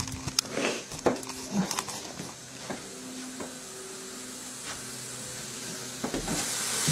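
Knocks and rustles from a handheld camera being carried and moved, then a steady hiss comes in about six seconds in and keeps going.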